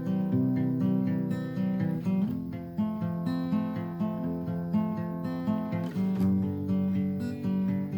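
Acoustic guitar strummed in a steady rhythm, an instrumental introduction with the chords changing every second or so.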